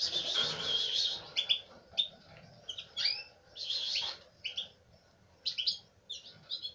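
Agate red mosaic canary nestlings cheeping to beg while being hand-fed. The cheeps are high-pitched, with a dense burst at the start, short cheeps every half second or so, and another longer burst about four seconds in.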